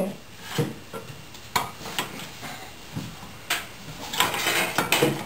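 Plastic toy pots, bowls and utensils on a play kitchen stove knocking and clattering as a small child stirs and moves them, in a string of scattered short knocks and clicks.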